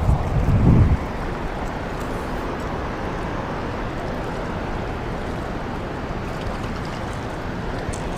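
Steady rush of fast river water flowing below a dam. Low rumbling buffets hit the microphone during the first second.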